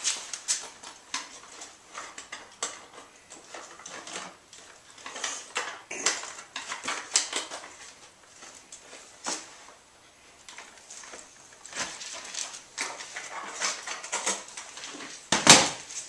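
Scattered clicks, knocks and rattles of hands working a motorcycle's rear trunk and seat loose for removal, with one louder knock near the end.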